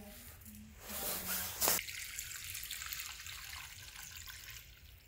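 Water poured from a jug into a small aluminium saucepan of chopped spices: a loud splash about a second and a half in, then a steady pour that tails off near the end.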